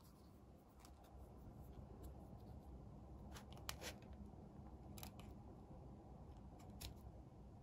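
Quiet, scattered clicks and light taps of a fork against a plastic dessert tray, a few seconds apart, over a low steady hum.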